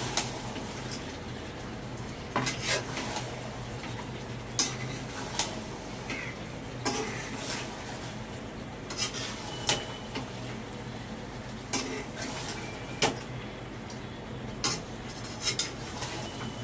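A metal spoon clinking and scraping against a cooking pan, in irregular sharp knocks about once a second, over a steady low hum.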